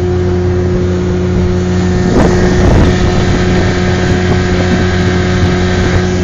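Small outboard motor on an aluminum jon boat running steadily at speed, with a brief rush of wind on the microphone about two seconds in.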